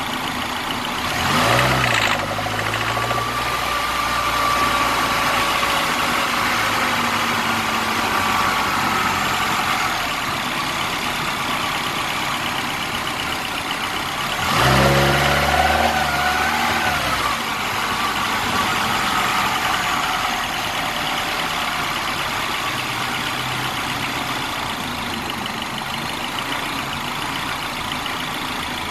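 2009 Mini Cooper Clubman S's turbocharged 1.6-litre four-cylinder engine idling steadily, with a short rev about two seconds in and another about halfway through. An unexplained purring noise that the owner cannot identify is heard around the first rev.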